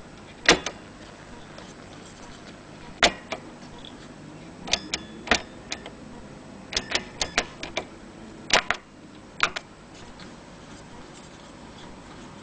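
A series of sharp, irregular clicks and knocks, some single and some in quick clusters, over a faint steady hiss with a thin high tone.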